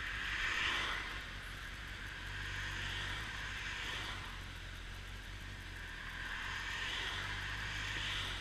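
Honda CBF motorcycle engine running at low, steady revs while riding, under a constant rush of road and wind noise. Oncoming cars swish past, swelling and fading about three times.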